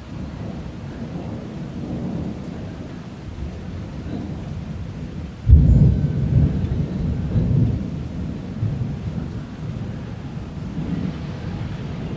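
Thunderstorm: low rumbling thunder, then a sudden loud thunderclap about halfway through that rolls on for several seconds, with rain falling.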